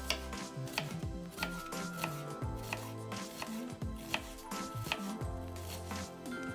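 Chef's knife dicing an onion on a bamboo cutting board: sharp knocks of the blade against the board at an uneven pace, about one to two a second, with music playing underneath.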